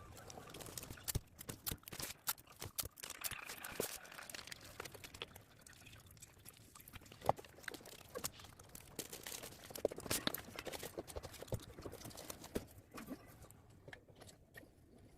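Irregular soft taps, clicks and rustles of hands handling packaging, fading near the end.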